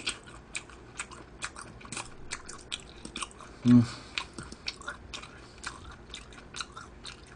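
Close-up chewing of spicy stir-fried pork intestines (gopchang): wet mouth clicks and smacks, irregular, a couple to a few a second. One short low hum from the eater comes about halfway and is the loudest sound.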